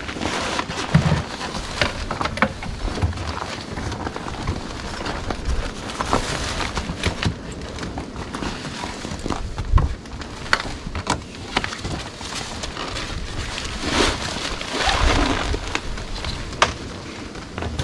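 Tarpaulin sled cover rustling as it is pulled over a loaded sled and tied down with rope, with scattered clicks and knocks from the handling.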